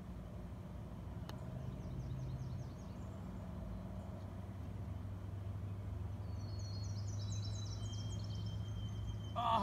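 Songbirds singing in the surrounding woods, with runs of quick high trilling notes, over a low steady hum. There is a faint single click about a second in and a short louder sound right at the end.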